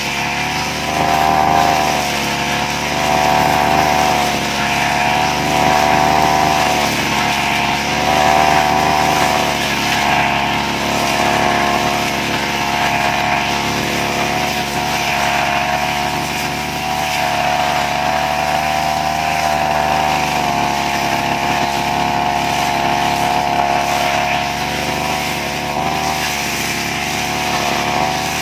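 Petrol brush cutter engine running hard as it cuts grass, its pitch rising and easing every couple of seconds with the load and throttle.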